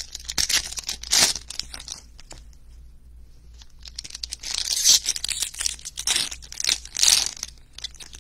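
Foil wrappers of 2021 Panini Prizm baseball card packs being torn open and crinkled, in several short bursts with a lull of about two seconds in the middle.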